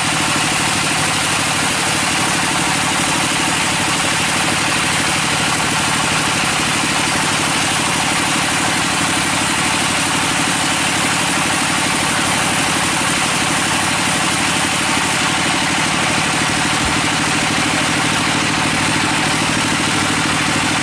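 Sawmill band saw running steadily while its blade cuts through a teak log, a constant mechanical drone with a hiss of sawing on top.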